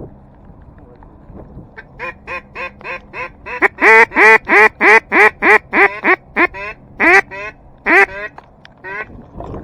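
A long run of mallard hen-style quacks from a duck call blown right at the microphone, about three to four a second, very loud in the middle, then slowing and thinning out with gaps near the end, as in a hail call to passing ducks.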